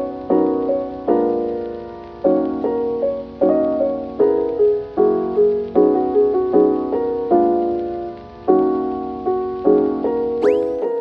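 Background music: a gentle piano melody with notes that strike and fade.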